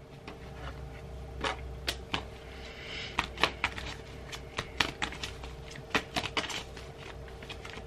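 A deck of tarot cards being shuffled by hand: a string of short, sharp card snaps and taps at an irregular pace.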